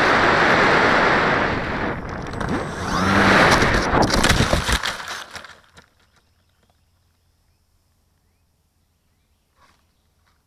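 Air rushing over an FPV glider's onboard camera microphone as it skims low over grass, then a rough brushing with several knocks as it ploughs into weeds between about three and five seconds in. The noise dies away about six seconds in as the glider comes to rest.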